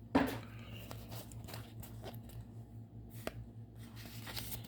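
Pokémon trading cards being handled, with soft slides and a few light clicks as the cards are moved through the hands. A louder rustle comes just after the start.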